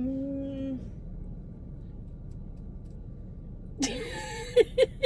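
A drawn-out, level-pitched 'mmm' from one voice, then a pause over the steady low rumble of the car cabin, then laughter breaking out near the end with a few short squeals.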